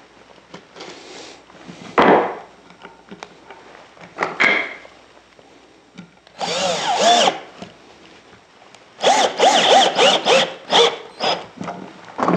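Cordless drill-driver driving pocket-hole screws through Kreg-jig holes to join a pine chair rail to a leg. There is one run of about a second, then a string of short trigger bursts as the screw draws tight, the motor pitch rising and falling with each. A wooden knock comes about two seconds in.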